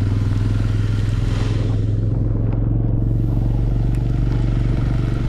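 Motorcycle engine running at a steady speed while riding, with an even hiss of wind and road noise over it that swells briefly about a second and a half in.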